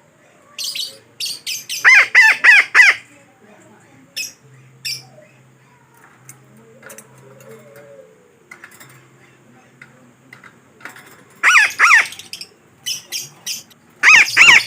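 Betet parakeet calls played as a lure: a quick run of four harsh squawks about two seconds in, then groups of two and three squawks near the end, with short sharp chips scattered between.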